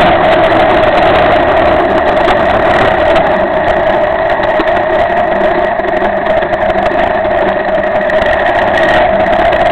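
Cagiva Elefant 600 motorcycle engine running steadily while riding on a dirt road, mixed with wind and road noise. It eases off a little in the middle and picks up again near the end.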